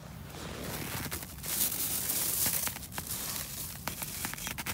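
Rustling, crinkling noise with a few light clicks, loudest from about one and a half to two and a half seconds in.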